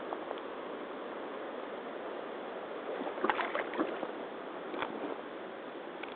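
Rubber hip boots stepping into a shallow muddy puddle, with water sloshing and a cluster of sharp clicks a little past halfway, and one more click about a second later.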